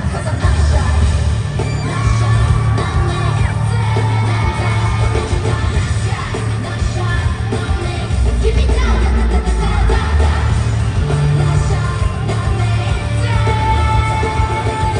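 K-pop song performed live through an arena sound system: sung vocals over a backing track with heavy, steady bass, with fans yelling along.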